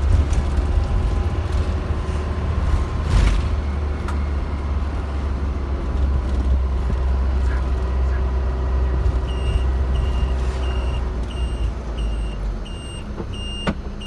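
Bus engine and road noise heard from inside the cabin, a steady low rumble that eases off near the end as the bus slows. From about nine seconds in, an electronic beeper sounds about twice a second. There is a single sharp knock about three seconds in.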